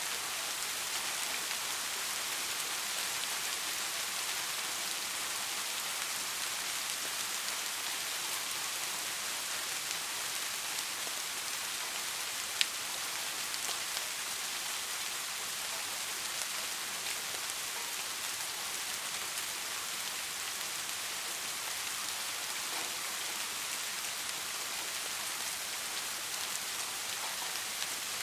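Steady rain falling on a surface, an even hiss of many drops, with one sharp louder drop-like tick about halfway through.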